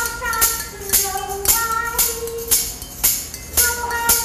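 Live stage music: a tambourine struck on a steady beat about twice a second, under a melody of held notes.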